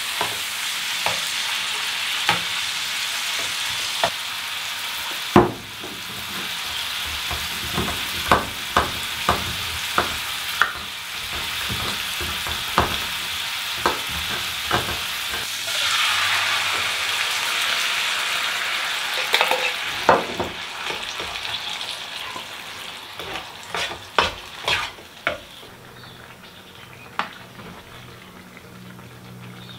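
Ground beef sizzling in a small cold-handle skillet while a spoon stirs it, with sharp metal clicks of the utensil against the pan. About halfway through the sizzle briefly swells louder, a run of metal clicks follows, and near the end the sizzle dies down.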